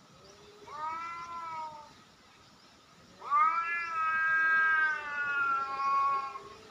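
A cat yowling at another cat face to face: a short yowl about a second in, then a loud, long drawn-out yowl of about three seconds that sags slightly in pitch, the warning call of a territorial standoff.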